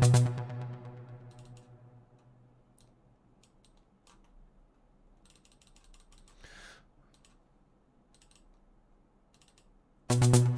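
A synth drum-sequencer pattern playing through a software synthesizer cuts off at the start and rings out over about two seconds. Sparse soft computer clicks and one short rush of noise follow. The electronic drum pattern starts again loudly near the end.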